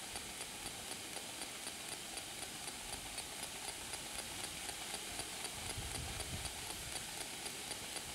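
Faint radio static hiss with a soft regular tick about three times a second, as from a Spirit Box sweeping through radio stations. A low rumble comes in after about five and a half seconds.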